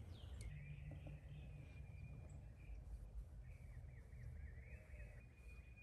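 Faint birds calling and singing in a thin, wavering high line over low outdoor background rumble.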